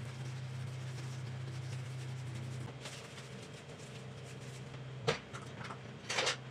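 A steady low hum that eases a little about three seconds in, then two sharp knocks, the second with a short clatter, near the end.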